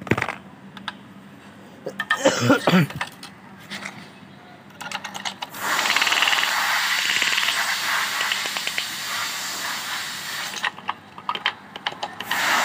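Light metallic clicks and taps of hand tools and parts against an engine block. A steady hiss takes over for about five seconds in the middle, then the clicking returns near the end.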